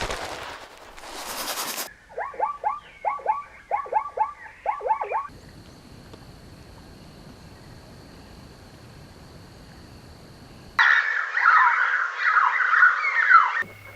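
A string of short animal-call clips joined by abrupt cuts. First comes a run of about ten quick calls, each falling in pitch. After a few seconds of faint hiss with a thin steady high tone, a loud burst of dense, overlapping chattering calls begins near the end.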